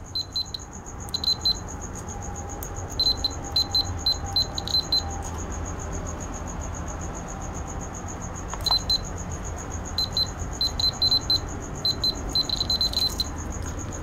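The buzzer of a remote-control fan's circuit board, rewired as a continuity tester, giving short high beeps in irregular clusters as the test lead touches a diode. Each beep means current is flowing: the diode is conducting, connected the right way round. A steady high whine runs underneath.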